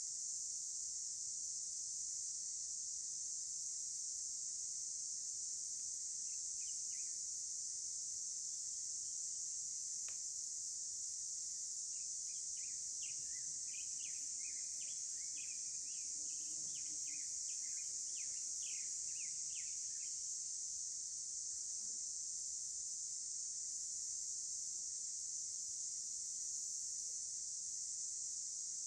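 A steady, high-pitched insect chorus, crickets chirring without a break. Partway through, a bird calls in a run of short, quick chirps for several seconds.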